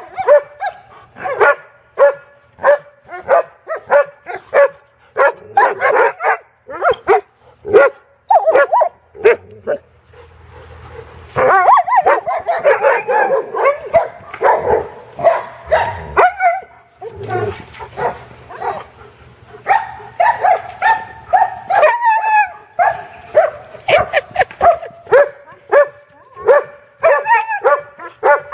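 German shepherd-type dogs barking and yipping excitedly in play, in quick repeated barks, with a stretch of drawn-out, wavering yelps and whines about halfway through.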